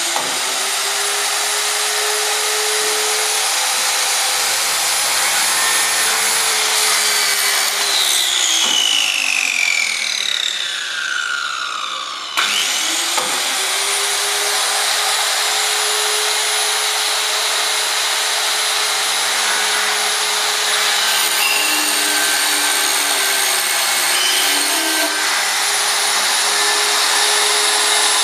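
Circular saw mounted on a CNC router gantry, its motor running loud with a steady whine as the blade cuts through a white board. About eight seconds in the whine falls away as the saw winds down, then about twelve seconds in it starts again abruptly, spins up and runs on steadily.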